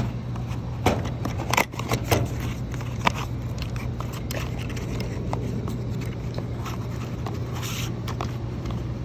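New electrical contactors being unpacked and handled, with scraping, crackling and clicking. A few sharper knocks come in the first three seconds, then lighter scattered ticks, over a steady low hum.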